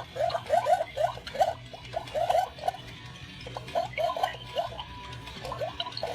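Battery-powered Halloween skull fish toy making its electronic bubbling sound: a rapid string of short rising blips, about four or five a second, with a brief lull in the middle. A steady low hum runs underneath.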